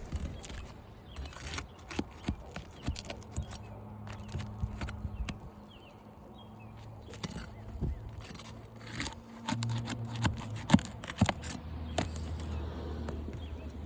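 Irregular scrapes and sharp clicks of hand work on an asphalt shingle roof, a shingle being lifted and pried to pop out a high-set nail, with one louder knock near the end and a low steady hum underneath.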